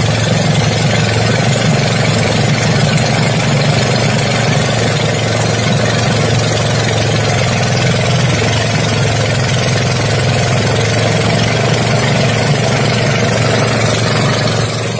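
Small wooden fishing boat's engine running steadily under way, a constant low hum with a steady hiss over it.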